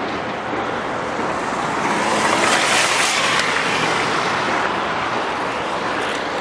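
Road traffic noise: a steady hiss of passing vehicles, with one vehicle going by that swells to a peak about halfway through and then fades.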